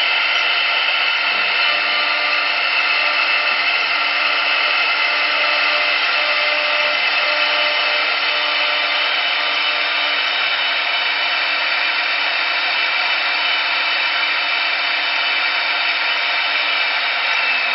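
CNC wood lathe running, its high-speed router spindle whining steadily while it mills spiral grooves into a rotating wooden spindle, with a hiss of cutting wood.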